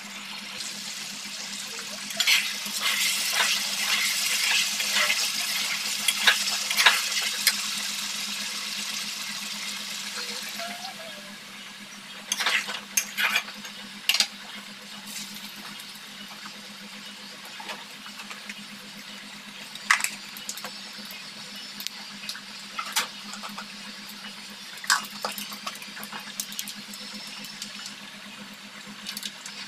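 Meat sizzling in its own juices in a metal wok, the sizzle loudest for the first ten seconds or so and then settling to a quieter bubbling. A spatula scrapes and clinks against the pan in short bursts now and then, over a steady low hum.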